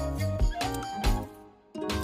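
Background music with a steady beat and a brief break near the end.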